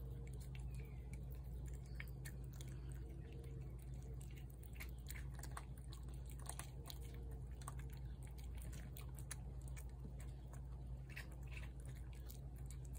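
Cats eating wet food from a plate: soft, irregular chewing and smacking clicks, over a steady low hum.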